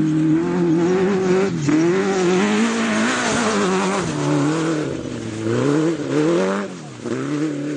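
Autocross buggy engine revving hard on the track, its pitch climbing and dropping again and again as the throttle is opened and lifted, with a brief drop in level about seven seconds in before it picks up again.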